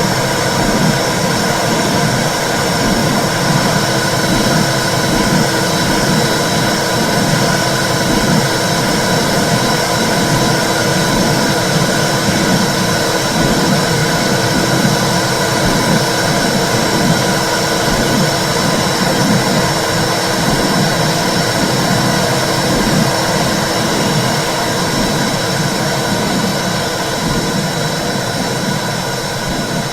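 Womb sound recording for soothing babies: a steady low whooshing rumble with a pulsing beat in the low range, easing off slightly near the end.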